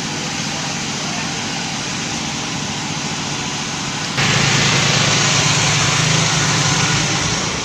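A speedboat's bank of four 250 hp outboard motors running, a steady engine drone with a low rumble. About four seconds in, it suddenly gets louder and hissier.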